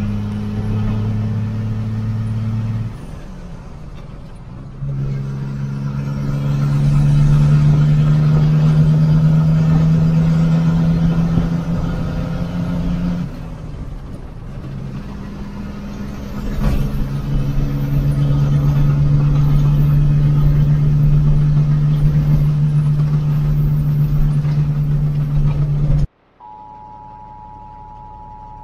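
Diesel engine of a Freightliner FL70 semi truck heard from inside the cab, running under load with a steady drone that eases off twice, about 3 and 13 seconds in, before picking up again. Near the end the engine sound cuts off abruptly and a steady two-tone emergency weather alert tone begins.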